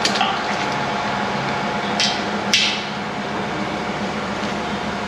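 Forklift engine idling steadily, with a few short, sharp knocks over it: one at the start and two more about two and two and a half seconds in.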